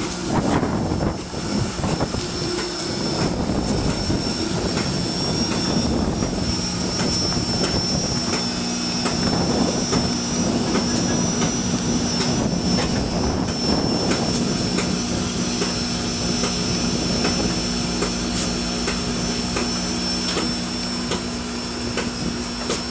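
Norfolk & Western 611, a J-class 4-8-4 steam locomotive, standing under steam: a steady hiss of escaping steam with a low hum and a thin high whine running under it.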